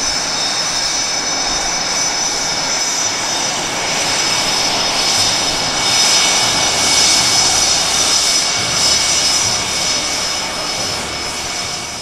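Aircraft engine running: a steady high whine over a rushing noise, getting louder around the middle and easing toward the end.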